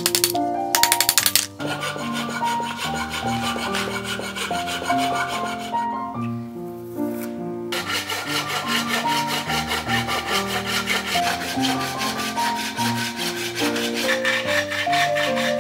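Hand saw rasping through a wooden board in repeated strokes, with a short break about halfway through, over background music.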